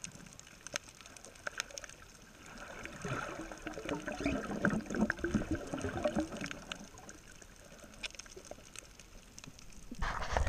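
Underwater reef sound picked up through a GoPro housing: scattered sharp clicks throughout, with a louder muffled, rumbling swell from about three to seven seconds in. A sudden loud low rumble starts near the end.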